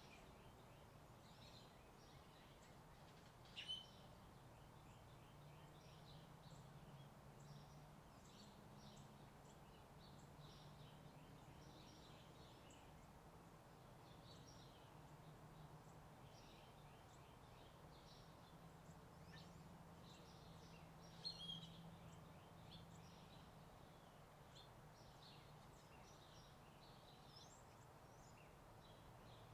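Faint morning birdsong, with many small birds chirping and two louder calls, one about four seconds in and one about twenty-one seconds in, over a steady low distant rumble.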